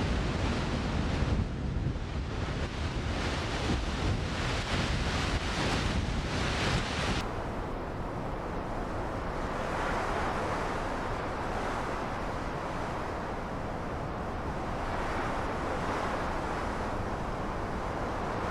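Wind rushing and buffeting over the microphone, gusty at first, then about seven seconds in it changes abruptly to a steadier rush.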